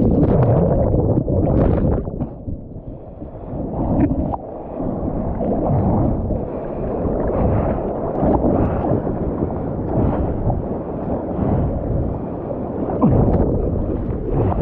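Ocean whitewater rushing and splashing around a water-level camera as a breaking wave washes over it, going muffled for a couple of seconds early in the ride. Near the end, hands slap and splash the water during paddling strokes.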